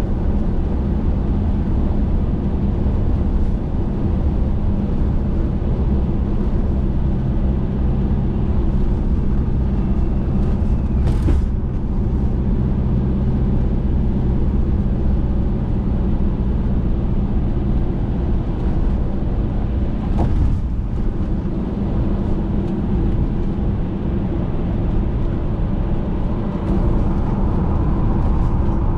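Camper van driving at road speed, heard from inside the cab: steady engine drone and tyre rumble. The sound grows a little louder and brighter near the end as the van enters a road tunnel.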